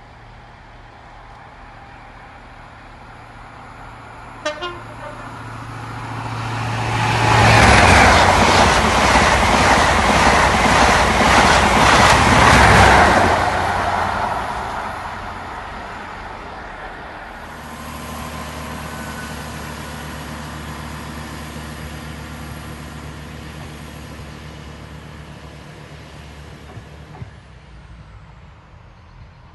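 A train passing through a station at speed: a loud rush of wheel and engine noise that builds for a few seconds, holds, then fades. A short sharp double sound comes a few seconds before it, and a steady low engine hum follows.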